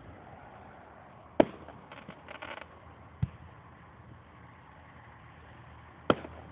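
Aerial firework shells bursting: three sharp bangs, a loud one about a second and a half in, a smaller one a little after three seconds, and another loud one near the end.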